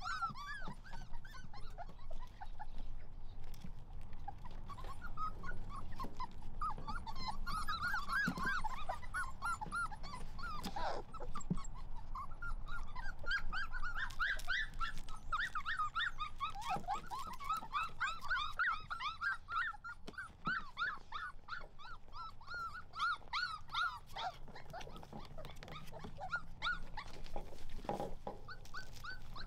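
Four-week-old Weimaraner puppies whimpering: a long run of short, high squeaky whines, most frequent in the middle stretch.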